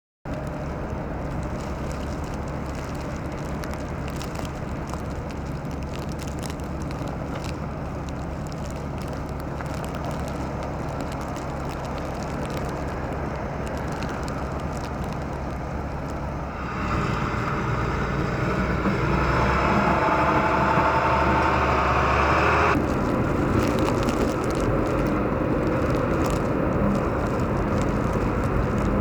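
Traffic on a snowy city street: a steady low rumble of vehicles, with a louder vehicle passing from about 17 seconds in that cuts off suddenly near 23 seconds.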